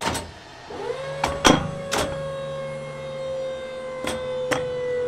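A mechanical sound effect: a steady electric-motor whine that rises briefly about a second in and then holds, over a low hum, with several sharp clicks and clunks, cutting off at the end.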